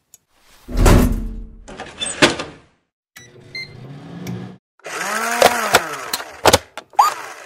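A string of short kitchen sound effects: a heavy thud about a second in, then knocks and clicks, a pitched sound that sweeps up and down in the middle, and a brief rising chirp near the end.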